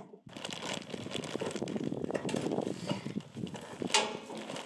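Sawmill packaging and bagged hardware being handled: a dense run of rustling and small clicks, with a sharper click about four seconds in.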